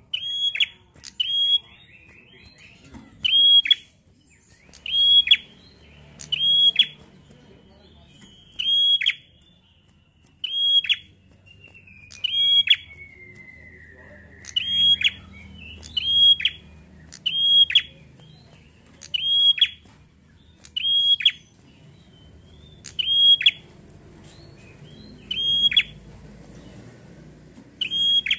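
Caged ashy tailorbird giving its loud, sharp call note over and over, about once every one and a half seconds, each note dropping steeply in pitch. A fainter long downward-sliding note comes around the middle.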